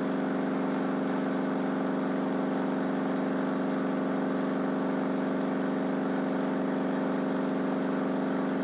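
A 12-inch Crossfire C3 subwoofer driven with a steady 48 Hz test tone, heard as an even low hum with many overtones. Its air pressure pushes a second subwoofer that works as a generator to run a small AC motor.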